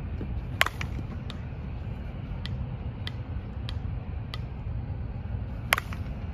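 A softball bat hitting pitched balls: two sharp cracks, one just after the start and one near the end, about five seconds apart. A steady low rumble and a faint tick repeating about every half second run beneath.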